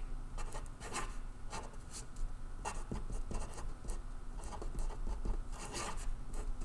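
Permanent marker writing on paper: a string of short, irregular scratchy strokes as letters are written and circles and lines are drawn.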